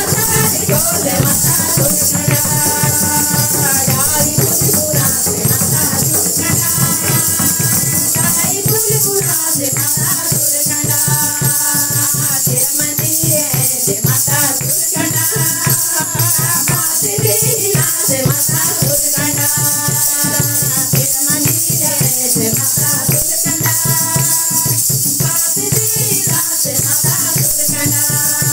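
Women singing a Garhwali devotional bhajan (a Mata bhajan) together into microphones, with hand clapping and a dhol drum keeping a steady beat under a rattling percussion.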